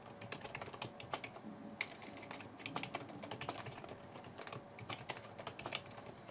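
Typing on a computer keyboard: an irregular run of quick key clicks as a username and password are entered.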